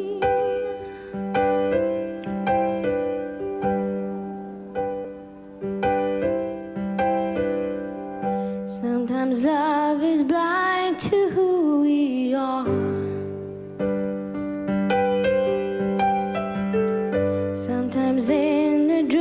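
Live performance of a slow ballad: keyboard chords struck one after another and left to ring out. About nine seconds in, a woman's voice comes in, singing a held, wavering line for a few seconds, and she comes in again near the end.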